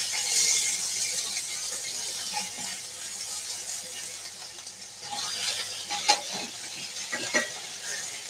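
Food sizzling in a frying pan on a gas hob while a utensil stirs and scrapes in the pan. The hiss is strongest in the first second or so, and a few sharp clinks of the utensil against the pan come near the end.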